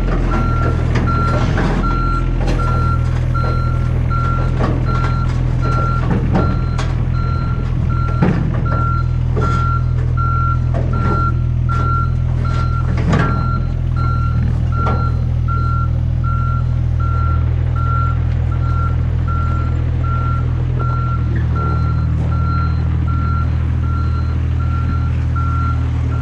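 Mini excavator's travel alarm beeping at an even pace over its running engine, with scattered metallic clanks from the tracks and machine.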